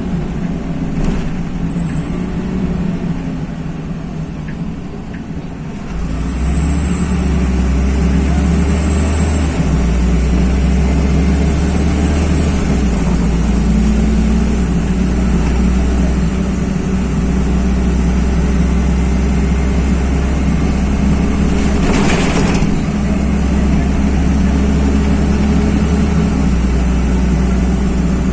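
Interior of a LiAZ-5292.21 city bus on the move: the engine drone is low for the first few seconds, then grows louder about six seconds in and stays steady, with a faint high whine that comes and goes. A single short knock about 22 seconds in.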